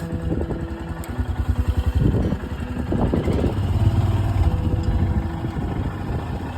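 Royal Enfield motorcycle engine running with a steady low beat, swelling and getting louder about two to four seconds in.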